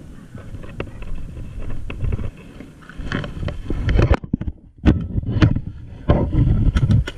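Rumbling handling and wind noise on a body-worn camera as the wearer moves, with several sharp clicks and knocks from about three seconds in.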